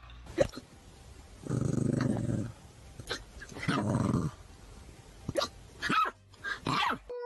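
A dog growling in two low, rumbling stretches, then letting out several short, sharp barks near the end.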